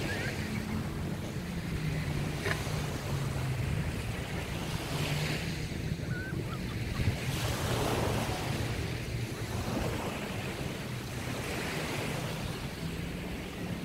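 Small waves breaking and washing up a sandy beach, the wash swelling and fading every two to three seconds, with wind on the microphone.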